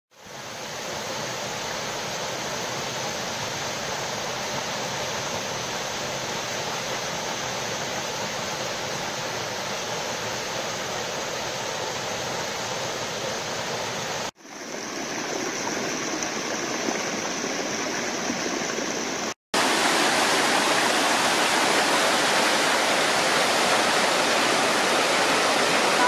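Steady rush of a small waterfall pouring into a rock pool. After two brief dropouts, a louder, brighter rush of water tumbles over a stepped cascade.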